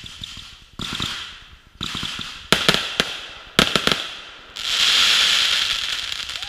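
Aerial fireworks going off. Two quick clusters of sharp bangs come about two and a half and three and a half seconds in, after two softer launches. Then a loud, long hiss slowly fades away.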